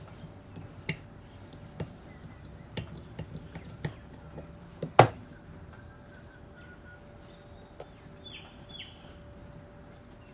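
Small metal clicks and taps as a screwdriver and loose parts work against the body of a Solex 34 PICT-3 carburettor, with the sharpest click about five seconds in. After that it goes quieter, with a few light handling sounds.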